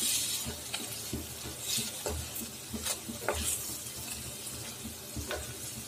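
Spoonfuls of chana and urad dal kofta batter sizzling as they fry in hot oil in a kadhai, with a few short scrapes and taps of a wooden spatula turning them in the pan.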